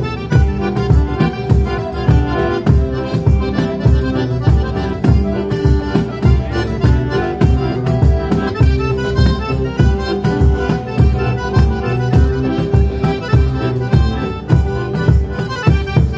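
Live band music led by an accordion, with guitar and drums keeping a steady beat; no singing.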